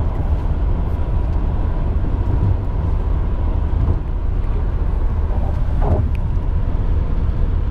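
Steady road noise inside a car moving at highway speed: a deep, even rumble of tyres and engine.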